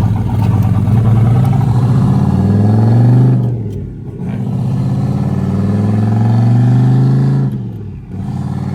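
Single-turbo LS V8 engine of a swapped BMW 1 Series accelerating through the gears. Its note climbs steadily, breaks off briefly at an upshift about four seconds in and again near the end, then climbs again each time.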